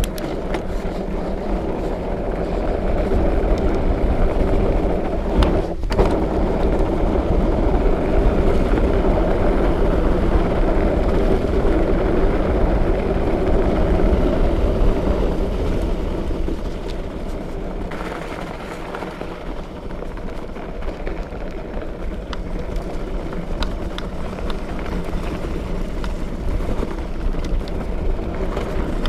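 Fat bike being ridden: its wide tyres roll over the ground with a steady rumbling drone, with a few brief knocks from the bike over bumps.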